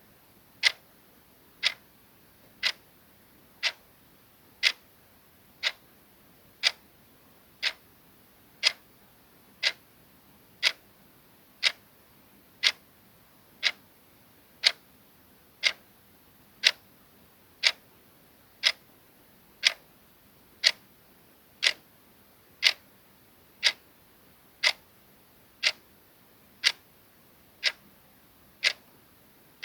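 Clock ticking sound effect: one sharp tick each second, evenly spaced and steady.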